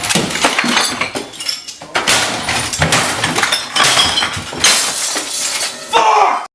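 A long crash of breaking glass and clattering objects: many sharp smashes and clinks one after another, loud throughout, cutting off suddenly near the end.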